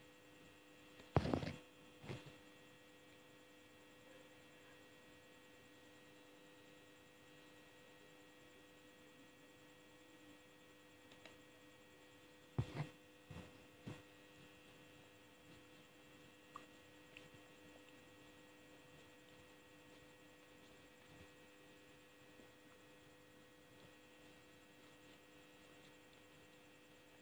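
Steady electrical hum made of several steady tones, otherwise near silence, broken by a few brief sharp sounds about a second in and again around halfway through.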